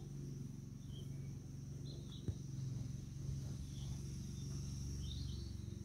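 Quiet outdoor ambience: a steady low hum and a steady high-pitched hiss, with a few short bird chirps scattered through it and a single sharp click a little over two seconds in.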